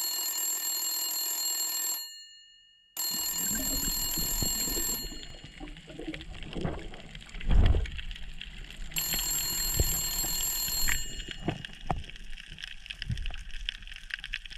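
A telephone rings in repeated bursts of about two seconds with pauses between them. In the gaps there are scattered clicks and knocks from underwater, the loudest a low thump near the middle.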